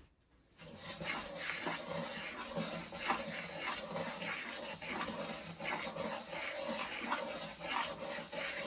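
Wooden spatula scraping and stirring dry semolina in a nonstick frying pan, in repeated strokes that start about half a second in, as the semolina is dry-roasted over low heat.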